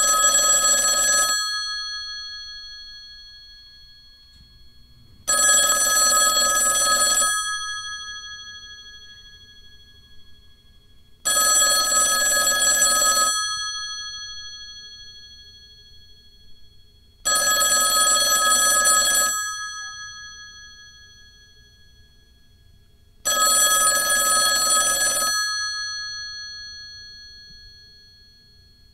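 Telephone bell ringing: five rings about six seconds apart, each a rattling burst of about two seconds whose bell tone dies away slowly before the next.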